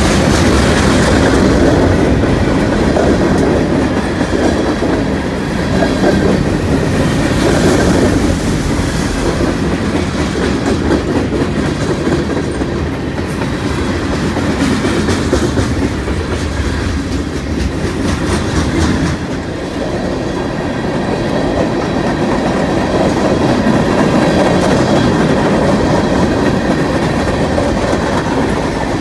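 Freight train rolling past, its car wheels clicking and rumbling over the rails in a steady stream.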